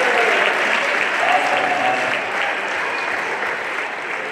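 Crowd applauding: many hands clapping at once, with a few voices mixed in, fading gradually.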